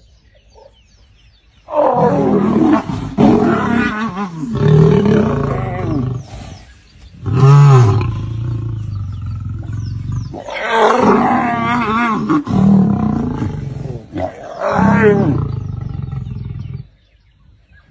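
Two male lions fighting, roaring in repeated loud bouts with short pauses between. The roaring starts about two seconds in and stops shortly before the end.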